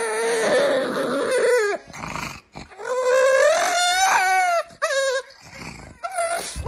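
Boston terrier howling in long, wavering calls: two long howls, the second climbing higher, then shorter ones near the end.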